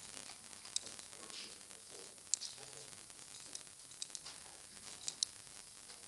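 Computer mouse clicking: about six short, sharp clicks, two of them in quick pairs, over a faint steady hiss.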